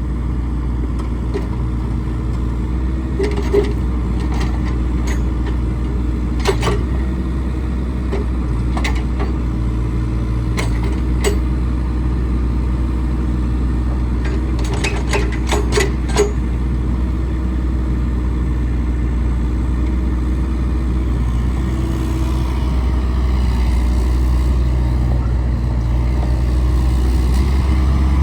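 Bobcat 331 mini excavator's diesel engine running steadily, with several sharp knocks from the machine along the way; it gets a little louder over the last few seconds.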